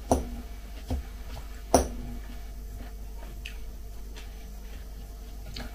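Metal fork clicking against a glass salad bowl as salad is picked up, a few sharp clinks with the loudest a little under two seconds in.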